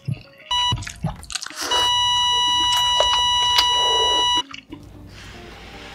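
Electronic beep sound effect: a short beep just under a second in, then one long, loud, steady beep of nearly three seconds at the same pitch that cuts off sharply.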